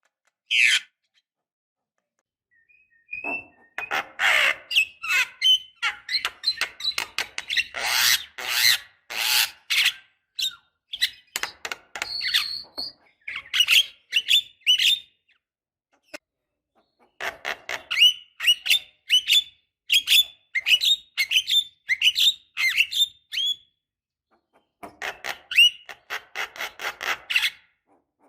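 Javan myna (jalak kebo) singing: after a few seconds' pause, a run of harsh rasping notes, then strings of sharp whistled chirps broken by short pauses.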